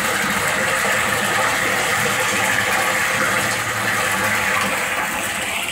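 Water churning steadily in a concrete pit around a pump's suction pipe and foot valve, with a faint steady machine hum underneath.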